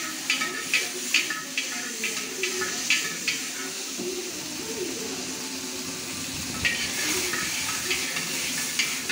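Metal ladle and spatula scraping and clanking against a large black wok as food sizzles in hot oil, two or three strokes a second. The strokes thin out for a few seconds midway, leaving mostly the sizzle, then pick up again near the end.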